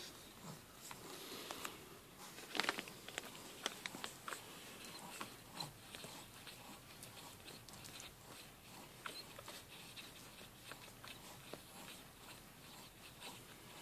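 16-day-old Brussels Griffon puppies suckling at their mother: faint, irregular wet clicks and smacking, with a few louder clicks about two and a half to four seconds in.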